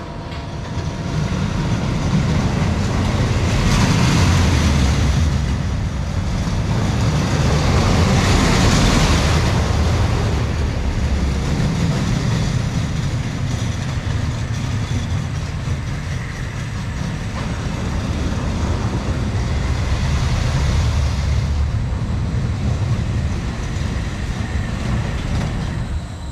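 Technical Park family roller coaster train running on its steel track: a continuous low wheel rumble that swells louder twice, about four and nine seconds in, as the train passes near.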